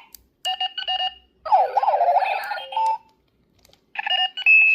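Clocky runaway alarm clock sounding its alarm: groups of electronic beeps and warbling, sliding chirps, broken by short pauses.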